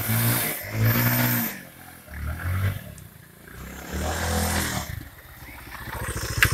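Motorcycle engine revving in three swells as the bike rides up, then settling to an even idle beat as it stops close by near the end.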